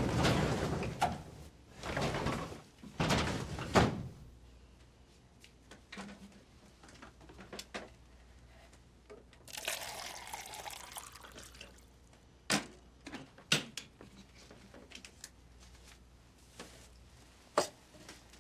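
Quiet household handling sounds: a few loud rustling knocks in the first four seconds, then about two seconds of water being poured some ten seconds in, followed by a few sharp knocks and clinks as things are set down by the kettle and glass.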